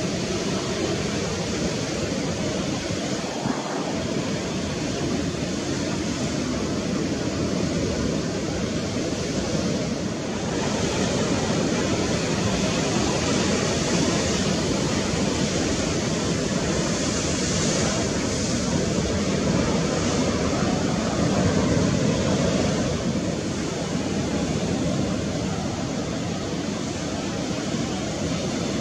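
Steady rushing noise of wind and sea surf with no engine tone in it, swelling a little about ten seconds in.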